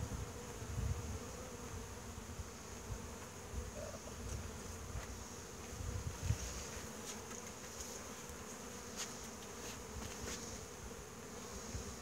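Honey bees buzzing around in a steady drone, with a steady high insect whine behind it and low wind rumble on the microphone in the first half.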